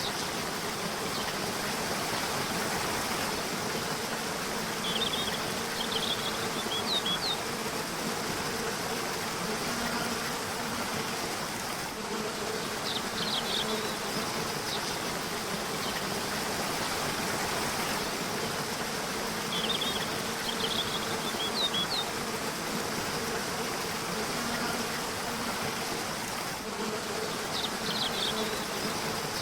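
A river rushing steadily, with short bursts of quick, high bird chirps returning about every seven seconds. A low buzzing hum comes and goes beneath the water.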